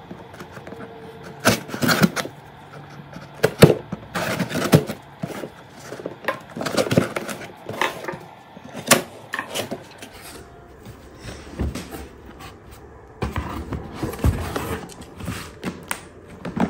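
Cardboard shipping box being opened by hand: a knife cutting through the packing tape, then the cardboard scraping and knocking as the flaps are pulled open and the contents handled, in an irregular string of sharp knocks and scrapes.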